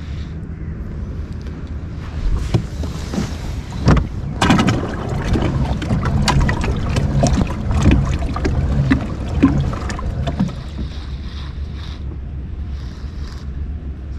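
Kayak on the water with wind on the microphone and a steady low rumble, and a run of knocks and splashy clicks from handling on board from about two and a half seconds in until about ten seconds in.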